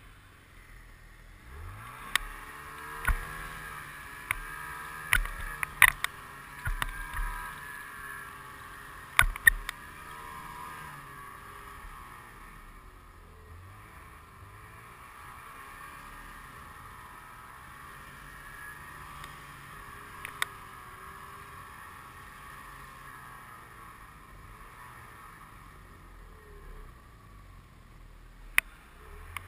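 Snowmobile engine running along a trail, its pitch rising and falling with the throttle. Several sharp knocks come in the first ten seconds, with one more near the end.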